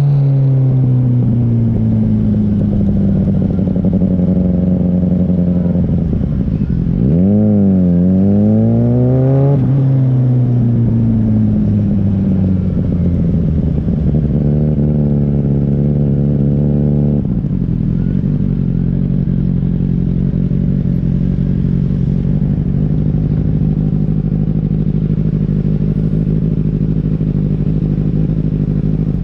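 Kawasaki Ninja ZX-6R's inline-four engine heard while riding: it slows down, its pitch dips and then rises quickly around seven to nine seconds in, and it holds a steady, lower note for the rest.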